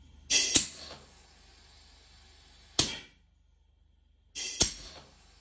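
Three sharp clicks and knocks about two seconds apart, from the Serdi 3 seat and guide machine being handled during setup. The first and last each come after a short rush of noise. A faint low hum sits underneath.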